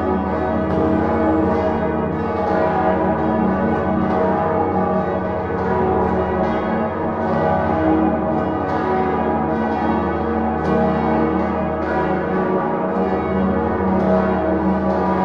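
Full peal of Salzburg Cathedral's seven swinging bells, led by the great Salvator bell and tuned to a minor motif (E♭, G♭, B♭, D♭, E♭, G♭, A♭). Their strikes overlap irregularly, more than one a second, in a continuous, dense ringing.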